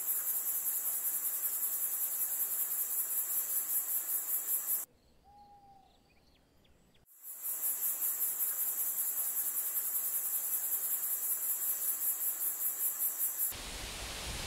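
Cricket chirping: a high-pitched pulsing trill at about five pulses a second, which breaks off for about two seconds midway and then resumes. Near the end it gives way to a steady hiss.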